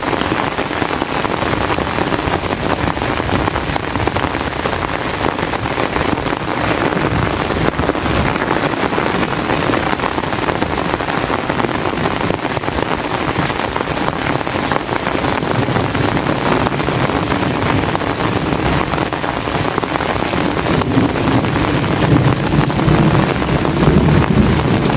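Heavy rain falling steadily, a dense hiss full of drop ticks. A low rumble builds and grows louder over the last few seconds.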